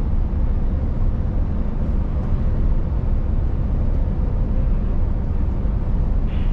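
Scania S770 truck's V8 diesel running at a steady cruise, heard inside the cab as an even low rumble mixed with road noise.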